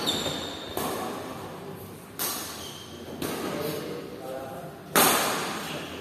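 Badminton rackets striking a shuttlecock in a rally, four sharp hits about a second and a half apart that ring on in a large hall, the loudest about five seconds in. Shoes squeak briefly on the wooden court between shots.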